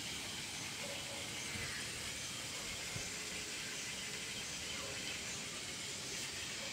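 Quiet, steady outdoor ambience: an even hiss with no distinct events.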